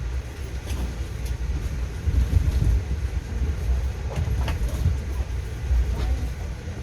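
Steady low rumble of an Amtrak passenger coach rolling along the track, heard from inside the car, with a few short sharp clicks and knocks.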